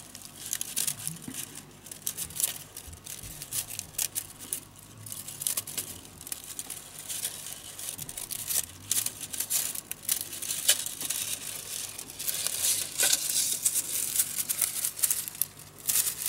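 Thin bamboo strips rustling, scraping and clicking against each other as they are threaded by hand over and under the other strips of a woven conical basket, in irregular crackly bursts.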